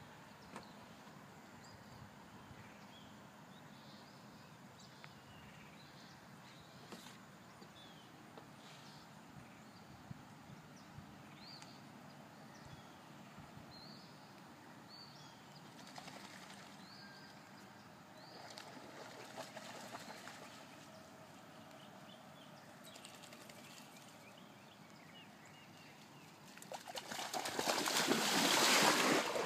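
Faint outdoor background with scattered small chirps, then near the end loud splashing as a golden retriever paddles up close through the water.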